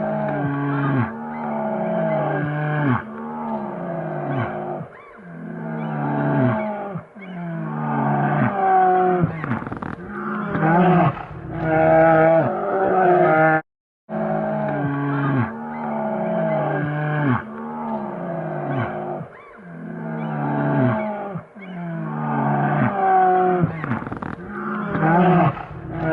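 Asiatic black bear calling: a string of long, pitched cries that bend and step up and down in pitch. After a brief break about halfway through, the same sequence of calls plays again.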